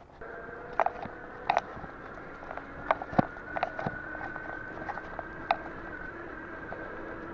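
Bicycle rolling along a sealed path: a steady whine sets in just after the start and runs on, with several sharp clicks and rattles from the bike.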